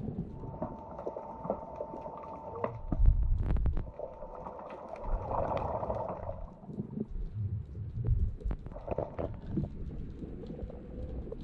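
Muffled underwater sound of water moving against an underwater camera near the surface: an uneven low rumbling and sloshing that swells a few times. A faint steady hum runs through the first half.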